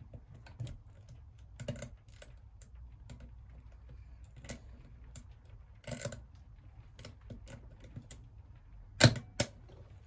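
Lock pick and tension wrench working the pins of a brass Master Lock 607 shutter padlock: scattered small metallic clicks and scrapes, with two sharp, much louder clicks about half a second apart near the end.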